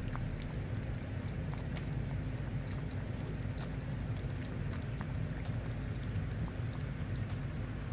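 Two cats lapping tuna liquid from a bowl: quick, irregular wet clicks of their tongues, over a steady low hum.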